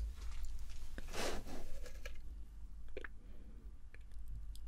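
Soft close-up handling sounds of hands and a cosmetic pencil: a brief rustle about a second in and a few light clicks, over a low steady hum.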